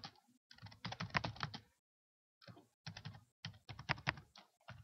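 Typing on a computer keyboard: quick runs of keystrokes, with a short pause about two seconds in.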